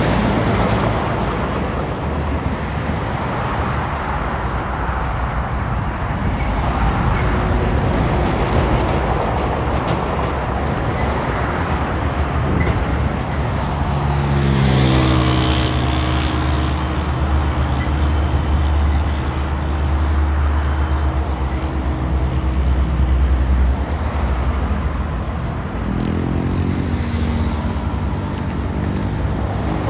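Road traffic on a busy city avenue, with cars passing in a steady wash of engine and tyre noise. About halfway through, one vehicle's engine hum stands out for around ten seconds, dropping in pitch at first and then holding steady. Another engine comes up near the end.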